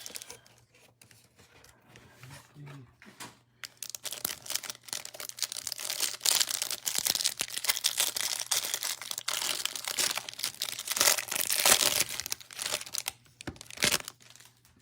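A foil trading-card pack wrapper being torn open and crinkled: a long crackling plastic rustle full of small clicks, starting about three seconds in and easing off near the end.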